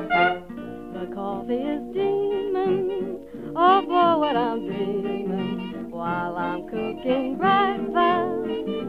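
Vintage jazz-age dance band recording: an instrumental passage with plucked guitar chords under a sliding, wavering melody line.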